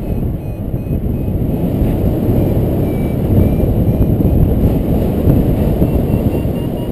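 Wind rushing and buffeting over the microphone of a paraglider in flight, loud and steady. Under it, faint short beeps from a variometer creep slowly higher in pitch near the end, the vario's signal that the glider is climbing.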